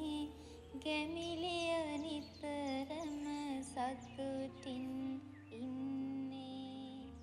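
Background music: a slow, lullaby-like melody in a woman's singing voice, with held, wavering notes over sustained low accompaniment.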